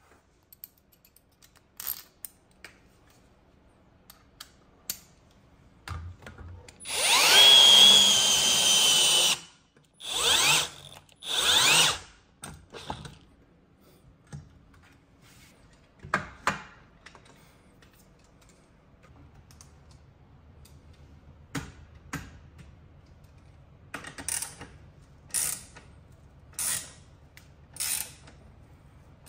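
Power drill run in one long burst of about two and a half seconds, its pitch rising as it spins up, then in two shorter runs of about a second. Several brief trigger pulls follow, four near the end, with clicks and knocks of tool handling in between.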